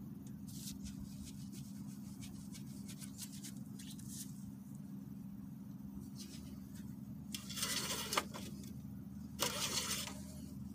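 Engine-oil dipstick being handled for an oil-level check: a few light clicks, then two short scraping rustles near the end as the dipstick is drawn through and slid back into its tube. All of it sits over a steady low hum.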